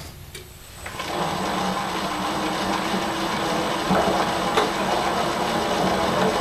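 Bridgeport milling machine spindle starting about a second in and then running steadily with a thin high whine, turning an annular cutter against a steel plate.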